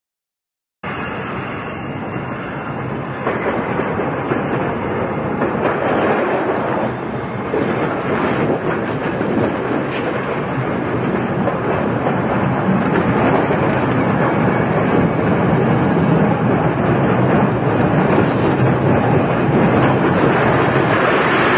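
A train running on its rails, a dense, steady rumble and rattle that cuts in suddenly about a second in and grows gradually louder.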